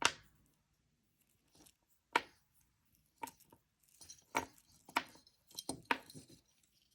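Pearls and gold spacer beads clicking against one another as they are pushed along beading wire: a dozen or so sharp, irregular taps that come closer together in the second half.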